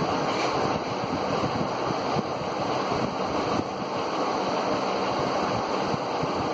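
3D hologram LED fan spinning on its stand: a steady rush of air from the whirling blades.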